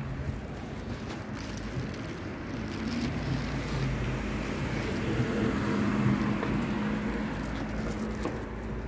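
A car driving along the street, its engine hum and tyre noise growing louder about halfway through and then fading as it passes.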